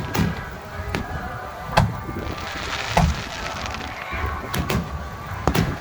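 Fireworks bursting overhead, a string of sharp bangs about a second apart with a quick cluster near the end, over music from loudspeakers.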